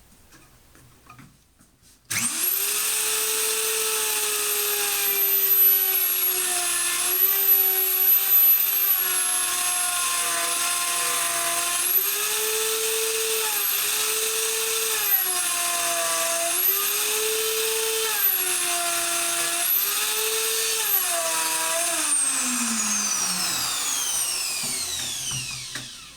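Einhell TH-RO 1100 E electric router switched on to a high whine, its pitch sagging and recovering several times as the bit is pushed through spruce. It is then switched off and winds down in a long falling whine.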